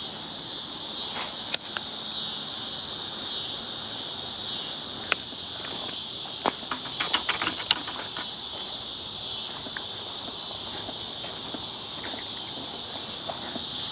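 Steady, high-pitched chorus of summer insects. A few sharp clicks cut through it, most of them bunched about six to eight seconds in.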